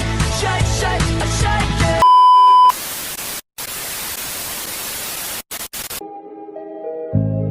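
Edited ending sound effects. Music cuts off about two seconds in to a loud, steady single-pitch beep lasting under a second. A few seconds of TV-static hiss with brief dropouts follows, then soft ambient music fades in.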